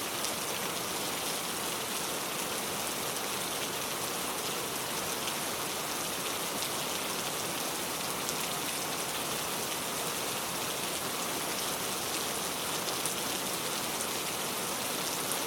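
Steady rain falling on a surface, an even hiss with many small drop ticks.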